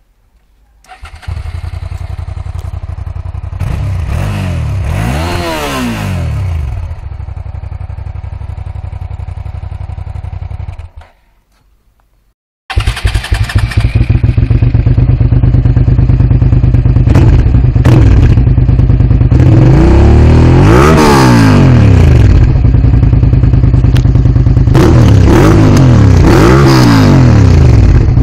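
Two Suzuki SV650 V-twin motorcycle engines, one with a stock exhaust and one with a modified one, run in turn. The first starts about a second in, idles, is revved twice and is switched off. After a short pause the second starts, much louder, idles and is revved four times.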